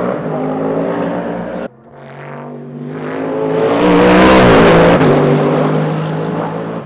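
Race car engines at full throttle: one engine note cuts off abruptly about a second and a half in. A sports prototype race car's engine then comes in, grows loudest as the car passes about four and a half seconds in, drops in pitch and fades away.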